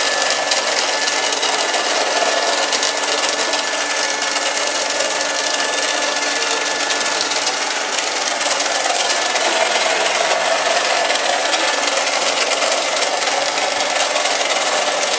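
Vacuum cleaner running on a rug: a steady, loud rushing noise with a thin, steady whine.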